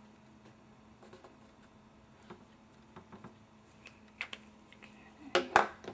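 Paper and card stock being handled on a cutting mat: faint rubbing and small ticks as the vellum is pressed down, then a few sharper clicks, and near the end a couple of louder knocks and rustles as the card is moved.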